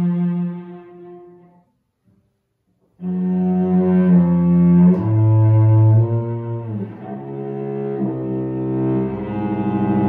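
Solo cello, bowed, playing a twelve-tone piece. A held low note dies away, then a gap of about a second and a half, then the cello comes back in with long held notes, a downward slide about two-thirds of the way through, and quick repeated bow strokes near the end.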